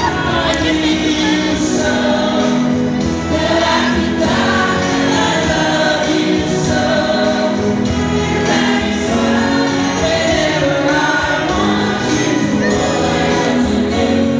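A large choir singing, loud and continuous, many voices at once.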